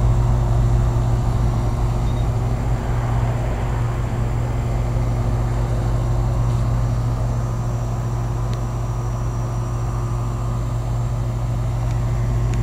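1992 Lennox central air-conditioner condensing unit running, its compressor and condenser fan giving a steady low hum. The unit is not cooling, which the owner puts down to it being low on or out of Freon.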